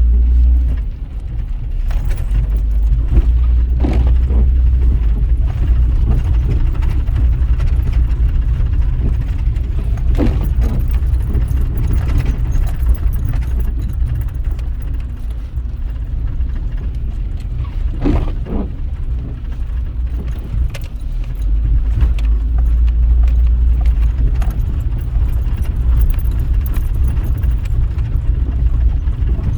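Rain falling under a heavy, steady low rumble, with scattered sharp taps.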